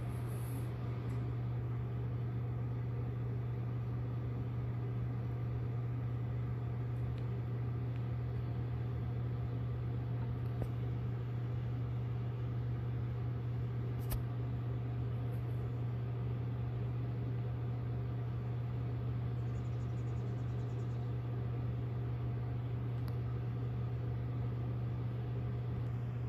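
A steady low machine hum that holds unchanged throughout, with a faint click about 14 seconds in.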